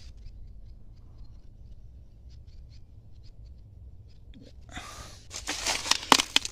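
Dry leaf litter and twigs rustling and crackling, with several sharp snaps, starting about five seconds in. Before that only a faint low rumble with a few light ticks.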